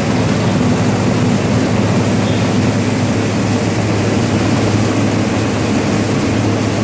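Rice mill machinery running: a loud, steady drone with a constant low hum, as the milled rice is shaken across the sorting tray.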